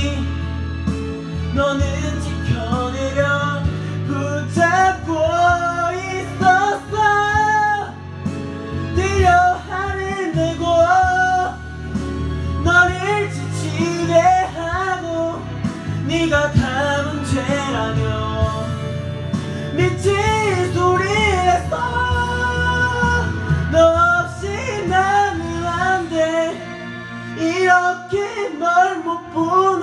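A man singing a Korean pop ballad into a karaoke microphone over the karaoke backing track, with long held notes that bend in pitch.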